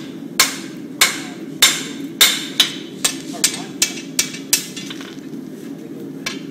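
Hand hammer striking red-hot steel on a blacksmith's anvil: about ten sharp, ringing blows that quicken as they go, then a pause of nearly two seconds near the end. A steady low hum runs underneath.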